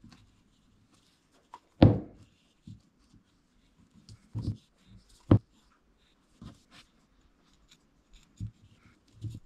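Handling noises as wool is wound by hand around a cord on a small clay pot: a few soft knocks, the loudest about two seconds in, and faint rustling between them.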